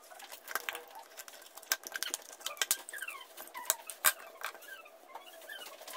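Faint plastic clicks and taps as a T5 fluorescent tube light fitting is pried open with a flathead screwdriver and its diffuser and tube are taken out. Several short, high chirps that fall in pitch come between the clicks in the middle.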